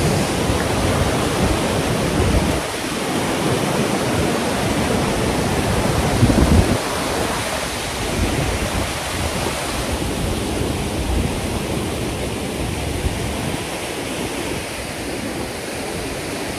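Fast-flowing mountain river rushing, a loud steady noise of moving water with a brief louder surge about six seconds in.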